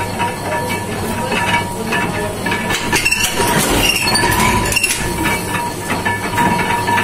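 Paper plate making machine running, with a continuous mechanical noise full of clicks and knocks over a steady tone. The knocks are loudest in the middle of the stretch.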